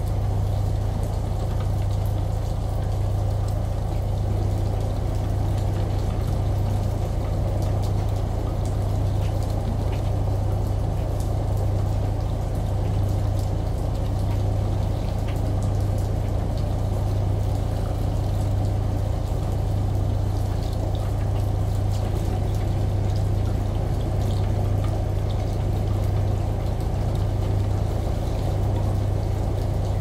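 Washing machine droning with a low hum that swells and fades slowly, layered with the steady rush of a running shower and faint ticks of rain.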